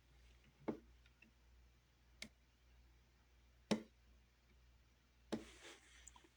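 Four faint sharp clicks, evenly spaced about a second and a half apart, over a low steady hum.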